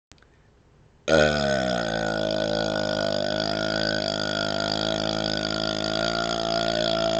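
A man's long, deep burp on command. It starts abruptly about a second in, after near silence, dips slightly in pitch at the onset and then holds at a steady pitch.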